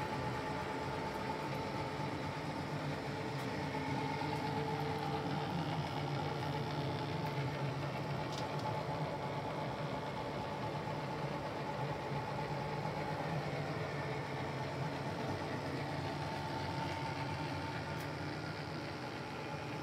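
Kearney & Trecker Rotary D milling machine running with a steady mechanical hum and a faint whine.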